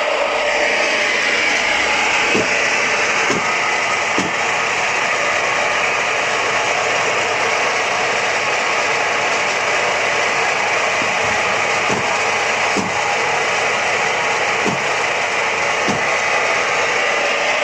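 Apple grinder running, a steady grinding noise with short low knocks every second or two.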